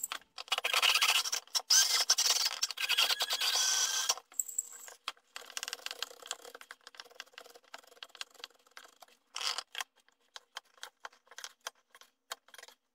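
Toasted almonds tipped out of a pot onto a wooden chopping board, rattling and scattering for about four seconds, then a chef's knife chopping them on the board in sparse, irregular knocks.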